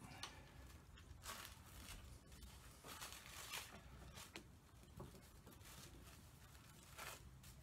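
Near silence with a few faint, brief rustles of a paper pattern piece being handled and smoothed on a table, over a low steady hum.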